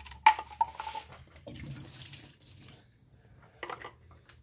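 Two-stroke fuel mix pouring out of a string trimmer's plastic fuel tank into a drain pan, a running, splashing hiss for about two seconds as the tank is emptied. A sharp click about a quarter second in is the loudest moment.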